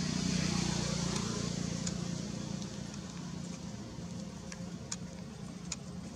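Steady low engine hum, loudest at first and slowly fading, with a few faint ticks later on.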